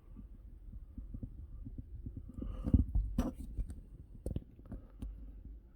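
Handling noise from a camera mount being adjusted: low rumbling with scattered light clicks and knocks, the loudest knocks about three seconds in.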